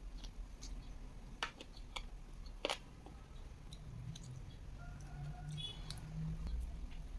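Close-miked chewing of fried chicken, with sharp wet mouth clicks and smacks, three of them standing out in the first three seconds.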